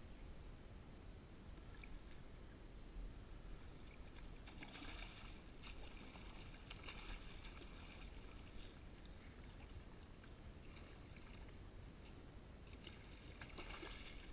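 Hooked bluefish thrashing and splashing at the surface beside a kayak: faint splashing in two stretches, starting about four and a half seconds in and again near the end, over a low steady rumble.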